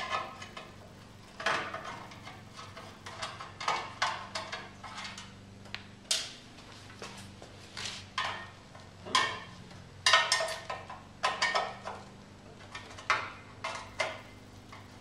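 Irregular metallic clinks and knocks of hand tools and engine parts as the recoil starter is unfastened and lifted off a Tecumseh lawnmower engine, each with a brief ring.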